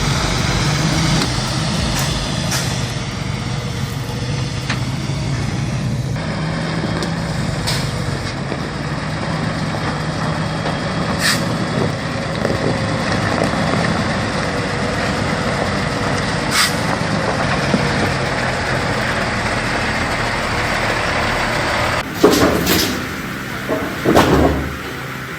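Heavy truck's diesel engine running steadily as the truck drives, with a few short clicks and knocks. Near the end the sound cuts abruptly to louder, irregular noises.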